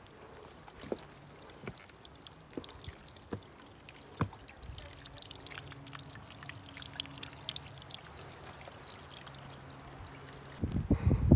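Footsteps crunching over dry fallen leaves and rock on a hiking trail, with scattered crackles and a few sharper knocks. Near the end, a louder rumbling noise on the microphone takes over.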